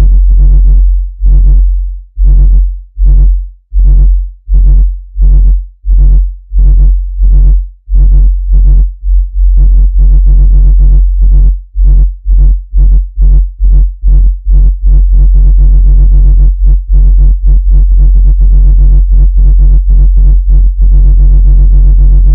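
Loud, low-pitched electronic tone from a speaker-cleaning sound, pulsing on and off to shake water and dust out of a speaker. The pulses come about once a second at first and quicken to two or three a second from about the middle.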